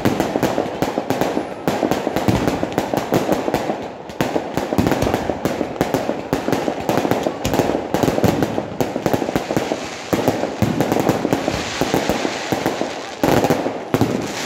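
Aerial firework shells bursting in a rapid, dense run of bangs with hardly a pause, with a louder burst about thirteen seconds in.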